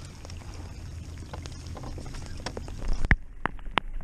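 Steady rushing wind-and-rain noise on the microphone. Then, about three seconds in, the hiss drops away and a run of sharp separate clicks follows, roughly three a second.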